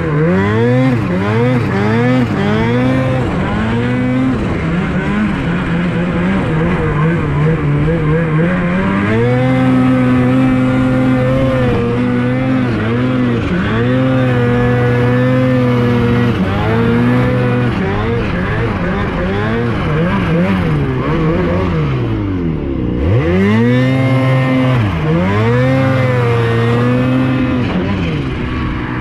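Turbocharged 2018 Ski-Doo 850 two-stroke twin snowmobile engine under way, its revs rising and falling with the throttle and held steady for a few seconds at a time. A little after twenty seconds it drops low, then revs back up.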